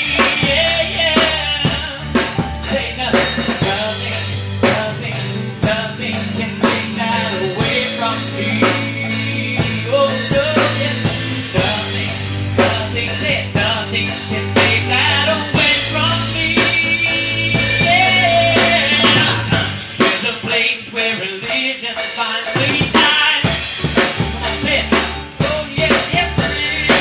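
Rock band playing an instrumental passage: drum kit keeping a steady beat under a sustained bass line and a higher melodic line. The bass drops out for a few seconds about twenty seconds in, then comes back.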